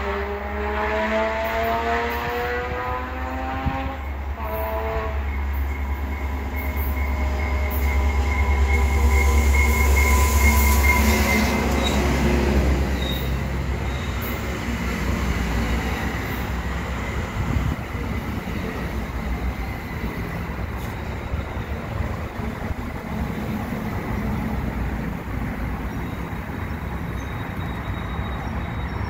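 EXO commuter train arriving at a station stop: its horn sounds one long blast and then a short one at the start. The bilevel coaches then roll past with a heavy rumble of wheels on rail, loudest about ten seconds in, with a steady high squeal over it, settling into an even rolling noise as the train slows.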